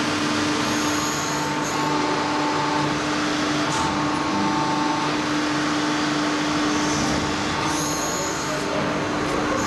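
CNC press brake running: a steady machine hum with a few held tones, and short hissing sounds three times.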